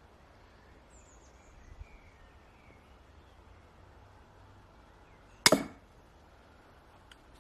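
A single sharp crossbow shot about five and a half seconds in: the string's snap and the bolt striking the target come almost together in one short crack.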